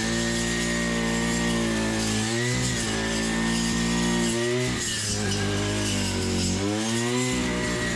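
Background music: held chords with a steady bass that change about every two seconds.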